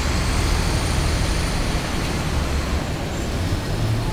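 City street traffic noise: a steady wash of passing vehicles, with a deep engine rumble that eases off about two and a half seconds in.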